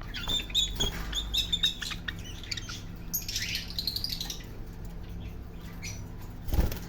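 Pet parrot calling: a quick run of short high chirps, then a longer, arching call about three seconds in. A brief low thump comes near the end, over a steady low hum.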